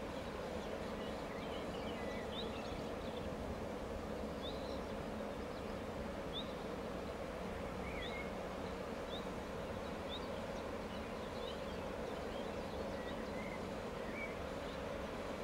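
Steady hum of a stationary diesel locomotive idling, with small birds giving short high chirps now and then.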